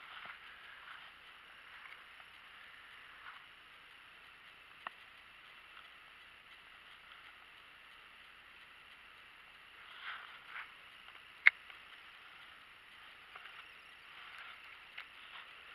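Faint outdoor ambience, a steady high hiss, broken by a few sharp single clicks, the loudest about eleven and a half seconds in.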